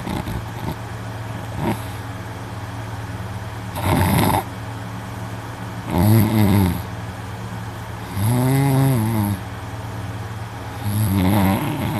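A young man snoring loudly in his sleep: four long snores about two seconds apart, each rising and then falling in pitch, over a steady low hum.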